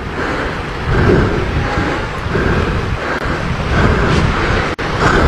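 Wind buffeting the microphone: a steady, loud low rumble of noise.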